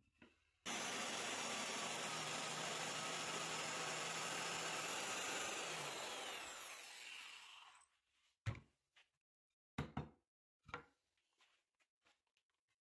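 Biscuit joiner starting abruptly and running steadily as its spinning blade cuts a slot into the edge of a wooden board, then winding down after it is switched off. A few light knocks follow near the end.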